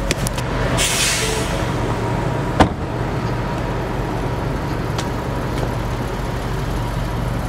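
Steady low hum of an idling car, with a short burst of hiss about a second in and a single sharp knock between two and three seconds in.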